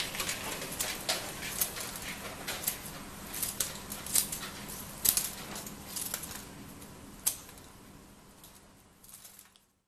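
Scissors snipping fir sprigs: a run of sharp, irregular clicks and snips, fading out near the end.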